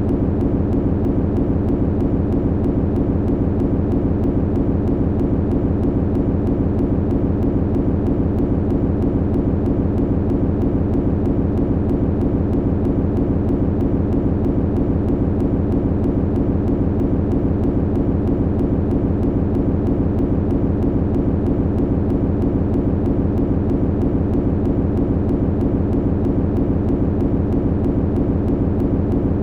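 Machinery humming steadily: a deep, even drone with a fast, regular pulse, unchanging throughout.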